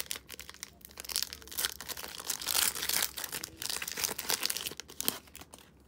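Foil wrapper of a Panini Optic baseball card pack being torn open and crinkled by hand: a dense run of crackles and rustles that dies away near the end.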